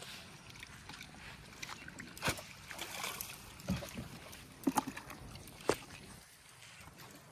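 A hooked fish splashing and thrashing as it is jerked out of the water on a bamboo pole, heard as a series of sharp wet slaps over a few seconds.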